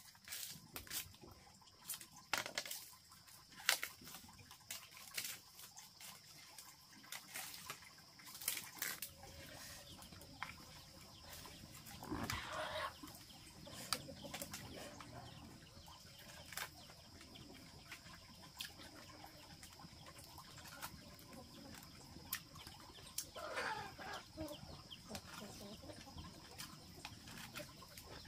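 A rooster crowing twice, each crow about a second long. Sharp clicks and knocks come through the first several seconds, over a steady high-pitched whine.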